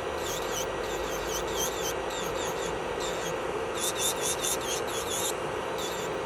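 Electric nail drill (e-file) running with a steady whine, its bit grinding against the nail in short repeated passes that give a scratchy rasp several times a second.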